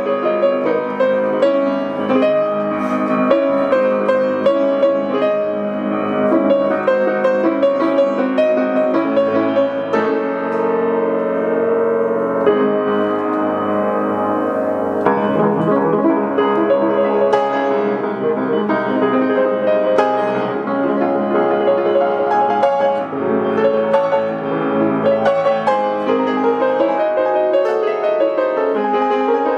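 Piano music: a piano playing a continuous run of notes and chords.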